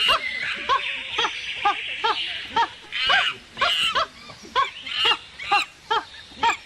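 Puppy yelping in a long run of short, high yelps, about two a second.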